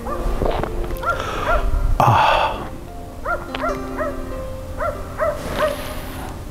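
Background music: a gentle melody of short, repeated gliding notes over held tones, with a brief hiss about two seconds in.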